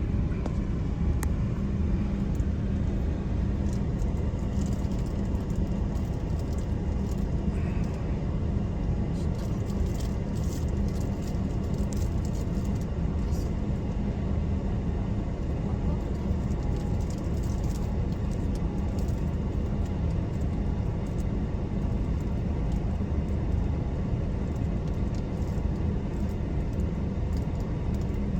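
Steady low rumble of a running engine, unchanging throughout, with faint scattered clicks and rattles over it.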